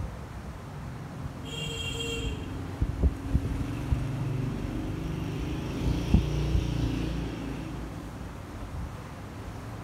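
Low engine rumble of a passing motor vehicle, swelling through the middle and fading, with a few sharp knocks and a brief high tone about two seconds in.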